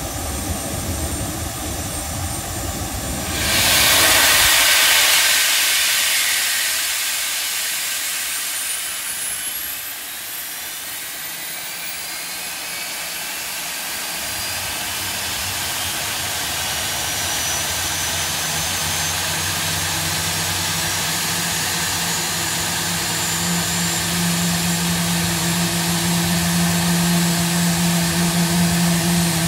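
GE CF34-8E turbofan on an Embraer E175, run on the ground with its cowl doors open. A sudden loud rush of air comes in about three and a half seconds in, then thin high whines rise slowly as the engine spools up, and a low steady hum builds and strengthens toward the end.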